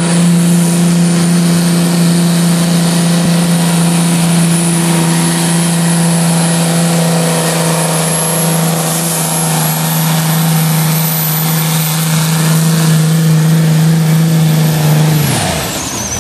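Antique tractor engine running steadily at full throttle under load while pulling a weight-transfer sled. About fifteen seconds in, its note drops away as the throttle is cut at the end of the pull.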